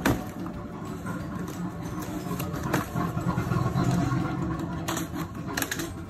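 Small cardboard boxes of china being lifted out of a carton and set down, with a sharp knock at the start and a few lighter knocks and scrapes, over a steady low engine-like rumble.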